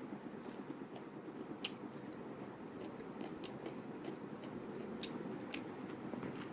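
Close-miked mukbang eating: chewing with scattered sharp mouth clicks and smacks, over a steady low background noise.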